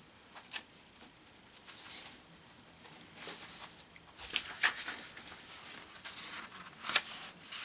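Paper rustling and handling noises: a hardcover book's pages being leafed through, in short irregular rustles with a few light clicks.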